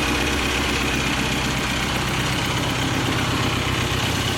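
1951 BSA 500cc motorcycle engine idling steadily.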